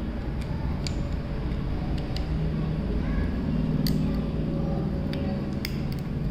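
A utility-knife blade prying at a plastic earbud housing, making scattered sharp clicks and scrapes as it is worked into the seam to force the cap off. A steady low hum runs underneath.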